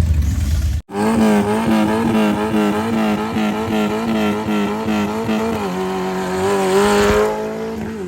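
Off-road race vehicle's engine held at high revs, the pitch wavering quickly up and down as the throttle is worked, fading away near the end. An abrupt edit cut breaks the sound just under a second in.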